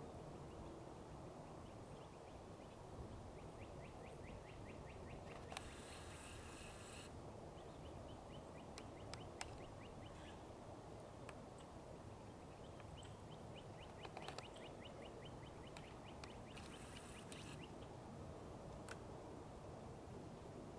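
Quiet outdoor background with a low steady hum and faint distant bird trills, rapid runs of short notes recurring every few seconds. Two brief hissing bursts come about a third of the way in and again near the end.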